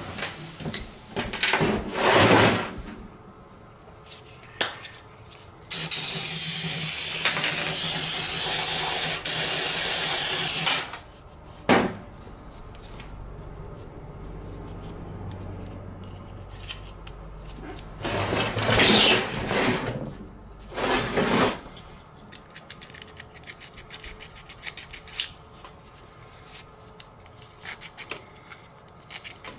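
Scraping and rubbing on a Coleman 125 ATV engine's crankcase as old base gasket material is cleaned off the mating surface. A loud, steady hiss lasts about five seconds in the middle, and there are a few louder bursts of wiping.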